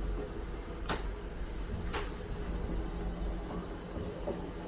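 Elevator car descending: a steady low rumble and hum, with two sharp clicks about a second apart.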